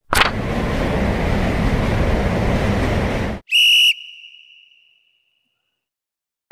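Edited intro sound effects: a steady rush of noise for about three seconds that starts with a click and cuts off suddenly, then a short high tone that rings on briefly.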